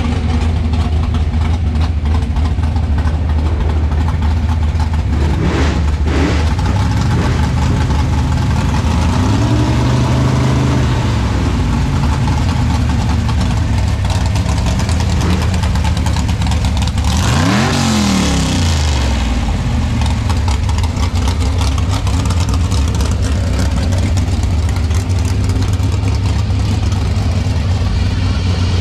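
Loud hot-rod engine idling steadily, revved up and back down about nine seconds in and revved again, more sharply, around eighteen seconds.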